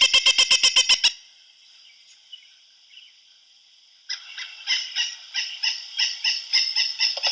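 Pileated woodpecker giving its rapid call series of loud, evenly spaced notes. One series stops about a second in, and after a pause of about three seconds a second series starts and speeds up.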